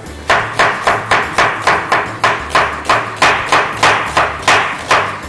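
Chef's knife chopping an onion on a wooden cutting board, in a steady run of sharp chops at about three to four a second.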